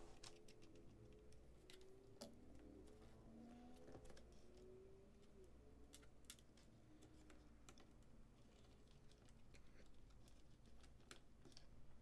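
Near silence with faint, scattered clicks and taps of a small screwdriver and fingers on a laptop's plastic bottom cover as its screws are put back.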